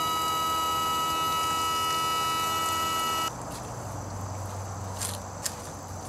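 Electric power-trim pump of an OMC King Cobra sterndrive running with a steady whine as the outdrive trims down, then cutting off suddenly about three seconds in.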